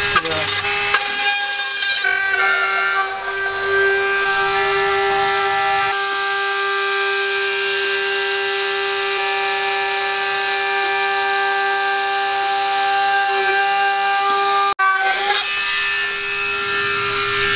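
Handheld cordless rotary tool running at high speed as it cuts through the plastic of a truck's centre console: a steady, high motor whine that wavers briefly about three seconds in and breaks off abruptly near the end.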